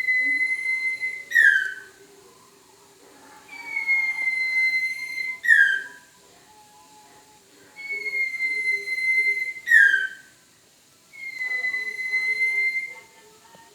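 Owl lure call ('sirtu' call): a long, steady, high whistle that ends in a short, sharply falling note, repeated about every four seconds. Three full calls, then a fourth whistle near the end that has no falling note.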